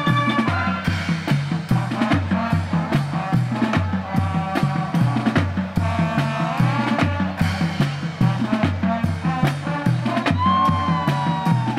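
High school marching band playing a field show: brass and winds over a steady beat from the drum line, with bass drum and snare. A note slides upward about six seconds in, and a high held note near the end falls away.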